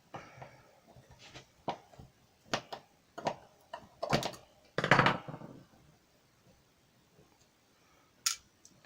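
Screwdriver and metal tools clinking and scraping against a lock as a stubborn part is worked loose during disassembly: a series of sharp clicks and knocks, loudest in a cluster about halfway through, then one sharp click near the end.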